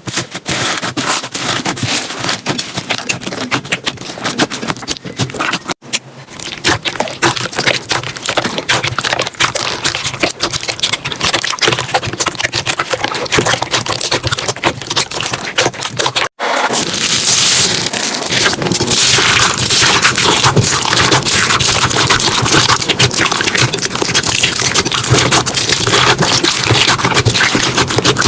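Slime being squeezed and pressed by hand, making dense, rapid sticky clicks and pops. It comes as three separate takes with brief cuts about six and sixteen seconds in, and the last take is louder and denser, with more hiss.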